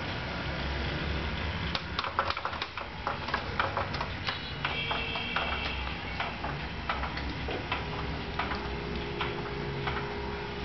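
Irregular plastic clicks and rattles from a baby activity seat's toys, with a short high electronic chime about halfway through and a steady electronic tone coming in near the end.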